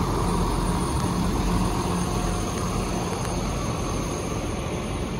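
2013 Hino 268's six-cylinder turbo diesel idling steadily, a low even hum with no change in speed.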